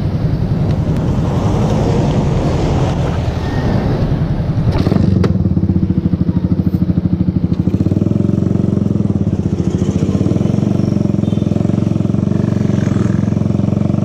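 Suzuki motorcycle engine running at low speed, with a sharp click about five seconds in. After the click the engine note becomes louder and steadier as the bike rides off along the road.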